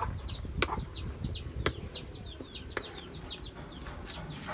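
Chicks peeping: a rapid string of short, high, falling chirps, about three or four a second. A few sharp clicks sound over it, the ladle knocking against the cooking pot as the soup is stirred.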